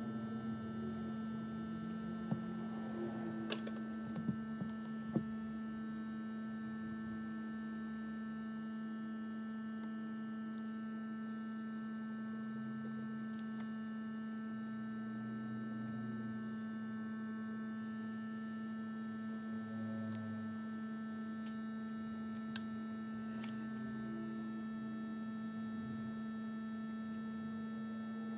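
Steady electrical hum with a few faint clicks scattered through it.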